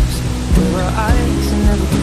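Music with a steady beat of about two hits a second and a wavering pitched melody over it.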